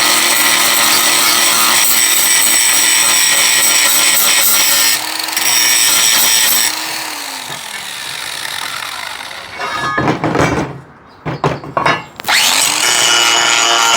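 Cordless angle grinder with a grinding wheel grinding metal, a loud, shrill, steady run. About seven seconds in the trigger is released and the motor winds down. After a few knocks of handling, the grinder spins back up with a rising whine and grinds again near the end.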